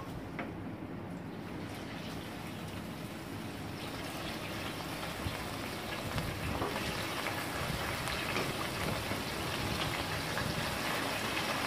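Marinated chicken pieces sizzling and crackling in the hot oil of an electric deep fryer as they are lowered into the basket; the hiss builds from about four seconds in and grows louder as more pieces go in.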